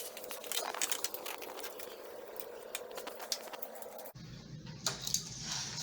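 Scattered light clicks and scratching of hand work on a window screen in its frame. About four seconds in, this cuts off suddenly and a steady low hum with hiss takes over.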